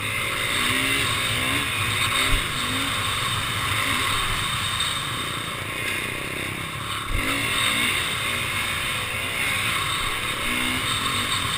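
Off-road motorcycle engine running at speed over sand, its pitch wavering up and down as the throttle opens and closes, under a steady rush of wind on the microphone. There are a couple of low thumps, one about two seconds in and another about seven seconds in.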